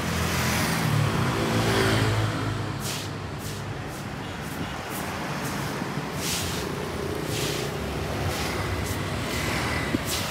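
City street traffic: a motor vehicle's engine passes close, swelling to its loudest about two seconds in and fading, over a steady wash of road noise from other passing traffic.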